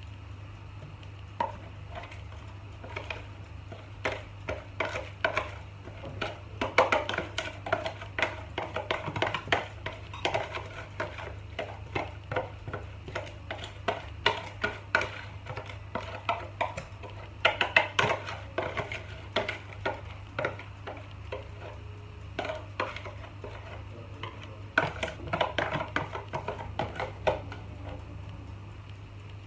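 Wire whisk scraping and tapping against a plastic tub and a foil baking tray as thick banana cake batter is scraped out into the tray: irregular clicks and scrapes in clusters, over a steady low hum.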